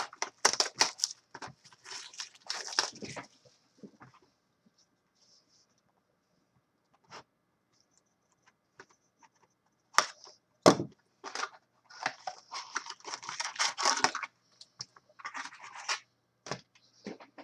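A sealed box of 2015-16 SPX hockey cards being opened: crinkling and tearing of its packaging for the first few seconds, a quiet stretch, then a couple of sharp knocks and a long run of crinkling and rustling as the foil card packs are pulled out of the box.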